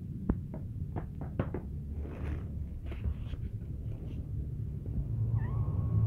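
Cats meowing, with a thin, held mew near the end. A few sharp clicks or taps sound in the first second and a half, over a low hum that grows louder toward the end.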